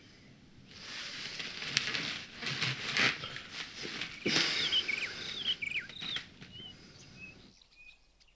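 Birds taking flight in a flurry of wing flaps, followed by short, quick chirping calls; the sound cuts off suddenly near the end.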